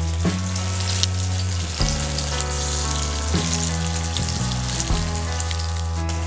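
Marinated chicken pieces deep-frying in hot oil in a kadai, a steady sizzle. Background music of sustained low chords, changing about every second and a half, plays underneath.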